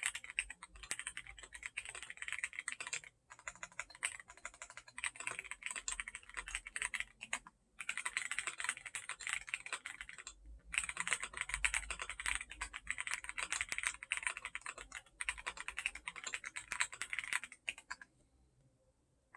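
Akko MOD007 mechanical keyboard with Akko CS Piano linear switches being typed on fast, a dense stream of keystrokes in runs with brief pauses. The typing stops about a second before the end.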